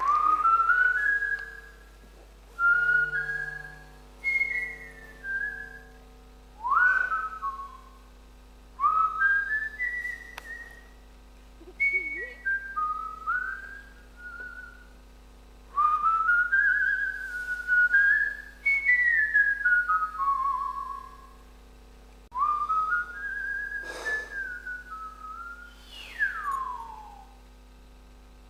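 A person whistling a tune in short melodic phrases with pauses between them, the last phrase sliding down in a long falling glide.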